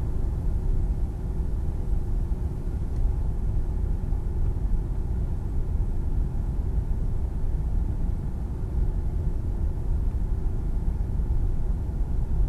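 A steady low rumble with no clear pitch or rhythm, holding at an even level.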